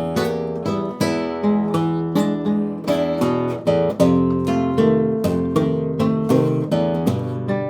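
Acoustic guitar being strummed in a steady rhythm, chord after chord, an instrumental passage between sung lines of a song.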